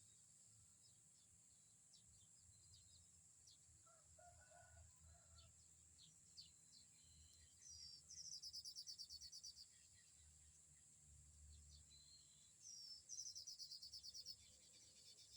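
A small bird singing twice: each song is a quick trill of rapidly repeated high notes lasting about a second and a half, the first about eight seconds in and the second near thirteen seconds. Scattered short chirps, a steady high insect hiss and a low wind rumble run underneath.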